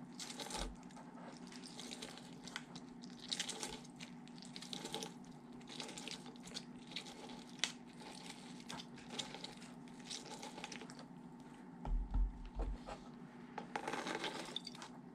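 A lemon half being twisted and pressed by hand on a plastic reamer juicer, giving quiet, irregular squishing and crackling of rind and pulp. A few low thumps come about twelve seconds in.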